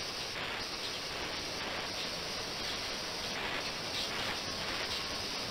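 Ultrasonic water tank running: a steady hiss from the cavitating water that swells and fades irregularly every second or so.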